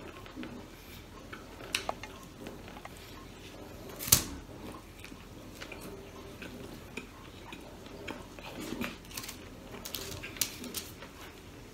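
Eating and food-handling sounds as a person eats grilled pork barbecue skewers and rice by hand: scattered small clicks and mouth sounds, with one sharp knock about four seconds in.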